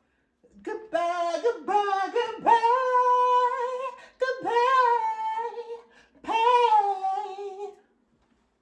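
A single high voice singing unaccompanied, three phrases with long held notes and short gaps between them.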